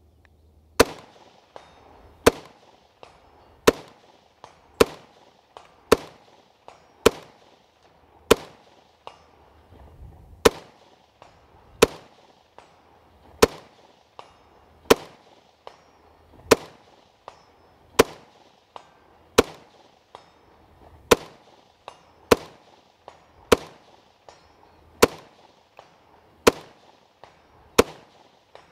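Robinson Armament XCR-L 5.56 rifle with a two-chamber muzzle brake firing a steady string of about twenty single shots, roughly one every second and a half.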